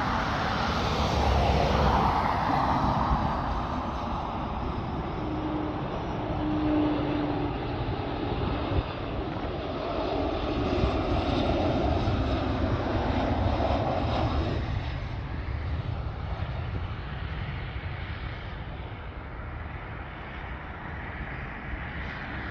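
Jet aircraft engines running as a steady rush, loudest in the first few seconds and fading away over the second half.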